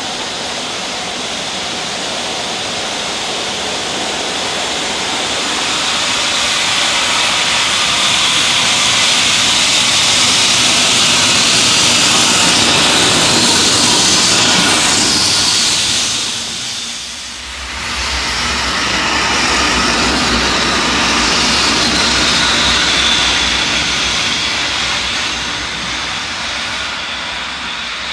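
EF65 electric locomotive running light past on the rails: a loud rushing roar that builds as it comes by, drops away sharply about two-thirds of the way through, then returns with a low rumble that slowly eases off.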